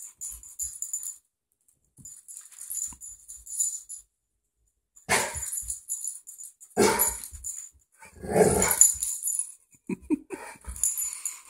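Rottweiler puppy barking, with three loud barks about five, seven and eight and a half seconds in.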